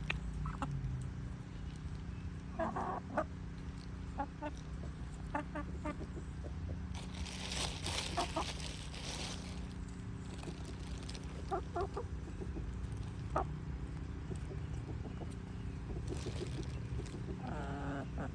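Chickens clucking as they are fed bread: short clucks scattered through, over a steady low hum, with a brief rustling stretch near the middle.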